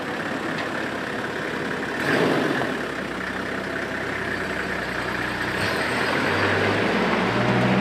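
Vehicle engine idling steadily under a broad noisy hiss, a little louder from about two seconds in.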